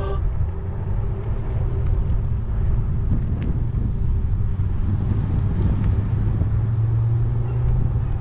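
Steady low rumble of riding a bicycle on a sandy dirt trail: wind on the camera microphone and tyre noise, with a low hum that rises slightly near the end.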